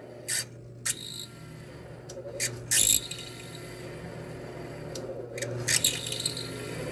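Drill press running at top speed, spinning a rounded steel rod against a hardened knife blade to friction-heat and soften the steel around a hole. A steady motor hum grows louder, with short, sharp scraping bursts from the rod grinding in the hole, several early and a cluster near the end.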